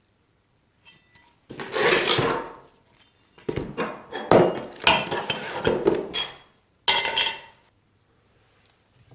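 Metal parts being handled, clinking and knocking together in several bursts, some strikes leaving a short metallic ring. The loudest clatter comes about two seconds in and again near seven seconds.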